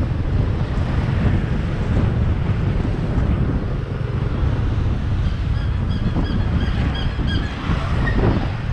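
Wind buffeting the microphone of a moving motorbike, with the motorbike's engine and road noise running underneath. A few faint, short high tones sound in a quick run around the middle.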